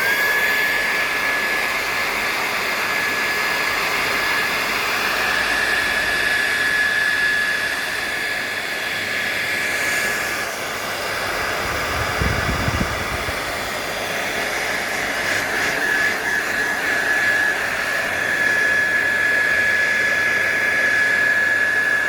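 A 2200-watt hair dryer switches on and runs steadily, a rush of air with a steady high whine. It is heating a tablet's screen adhesive to soften it for prying. A brief low rumble comes about halfway through.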